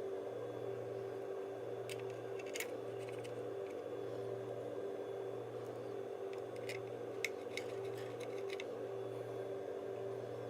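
Small sharp clicks of a 2.5-inch drive, its screws and a metal hot-swap tray being handled as the drive is fitted, twice about two seconds in and a few more around seven seconds in. They sit over a steady hum that pulses slowly about once a second.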